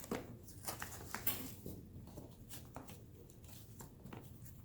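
Scattered light clicks and rustling of small pigment jars, lids and packing being handled while unpacking a box.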